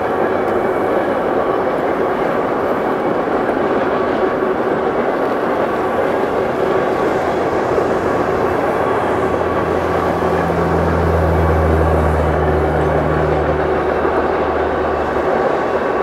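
Approaching freight train hauled by an EMD GP40-2 diesel locomotive: a steady rumble, with a deeper drone swelling about ten seconds in and fading shortly before the end.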